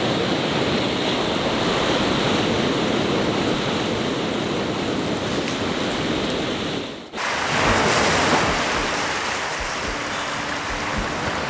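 Sea waves washing onto the shore, a steady rushing surf. The sound drops out briefly about seven seconds in, then carries on.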